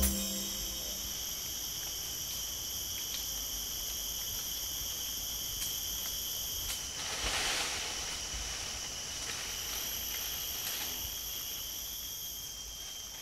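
Forest ambience of insects droning steadily at a high pitch, with a brief louder rushing sound about seven seconds in.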